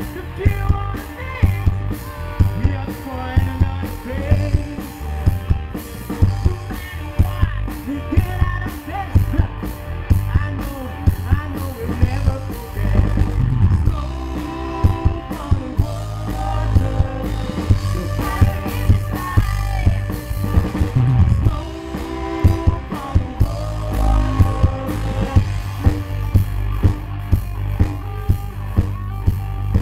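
Live rock band playing: electric guitar and a steady drum beat, with a male singer on the microphone.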